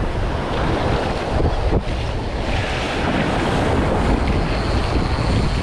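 Surf washing and foaming in the shallows, with wind rumbling on the microphone.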